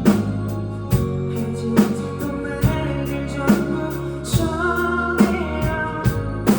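Live band playing an instrumental passage of a pop-rock song: drum kit keeping a steady beat, with bass and guitar.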